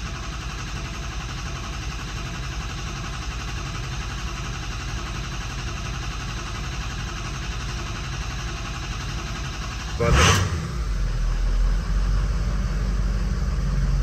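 Ford 6.0 Power Stroke V8 diesel cranking on the starter for about ten seconds, then catching with a loud burst and settling into steady running. The long crank comes from air in the oil system: a relief valve that had stuck open was just cleaned, and oil pressure has to build before the engine will fire.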